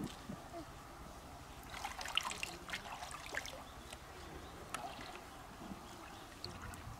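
Shallow river water splashing and trickling as hands grope along the bottom, with a cluster of small splashes and drips about two to three and a half seconds in and another single splash near the end.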